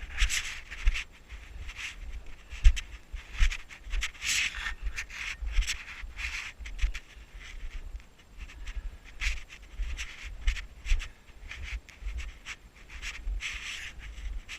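Footsteps crunching through deep snow, about a step a second, over a low rumble on the microphone.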